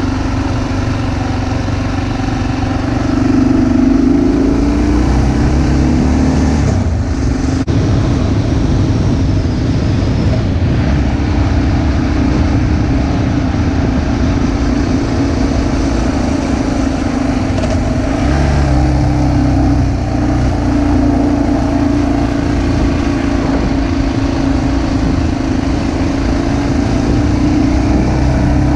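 Car engine running steadily on a winding mountain road, with road and wind noise. Its pitch rises a few seconds in, then holds.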